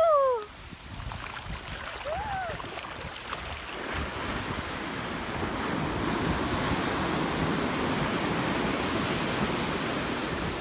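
Ocean surf breaking and washing up a sandy beach, with a steady hiss that swells from about four seconds in. Two brief high, gliding calls sound in the first few seconds.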